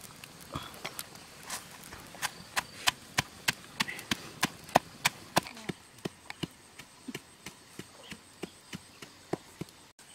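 Chopping on wood: a steady run of sharp strikes, about three a second, heavier through the first half and lighter later on.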